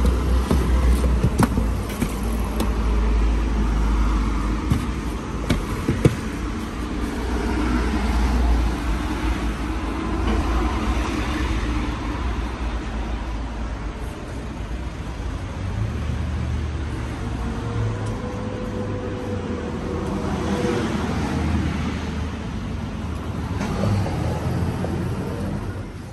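Steady low rumble of road traffic, with a few light knocks and one sharper knock about six seconds in.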